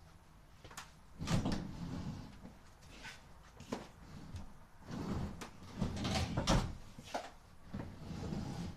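Boots stepping and scuffing on a tile floor, with a string of irregular knocks and clunks starting about a second in.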